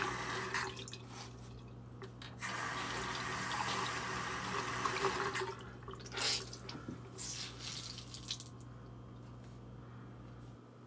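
A tap running into a sink in several spurts, stopping and starting, as a makeup sponge (beauty blender) is wetted under it; the water dies away about eight seconds in. A low steady hum runs underneath.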